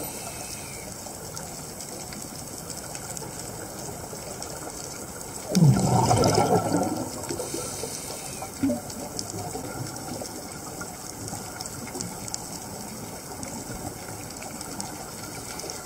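Underwater ambience on a diver's camera: a steady hiss, with a louder gush of scuba exhaust bubbles lasting about a second and a half, starting about five and a half seconds in.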